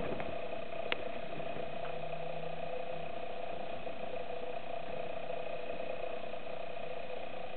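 A steady mechanical buzz of even pitch, with a single sharp click about a second in.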